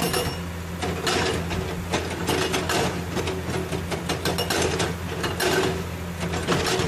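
Hydraulic rock breaker on a Komatsu PC200 excavator hammering at rock in a rapid clatter, over the steady drone of the excavator's diesel engine.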